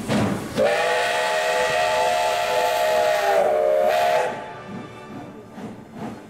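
Steam locomotive P36-0031's whistle blowing one long chord of several tones for about three and a half seconds, over a hiss of steam, as the train departs. The chord dips in pitch briefly near its end, then cuts off, leaving a fainter hiss of steam.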